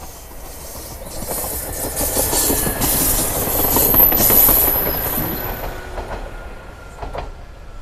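JR Kyushu KiHa 66 series diesel railcar passing at speed, its wheels clattering over the rail joints; the sound builds to its loudest about four seconds in as it goes by, then fades away.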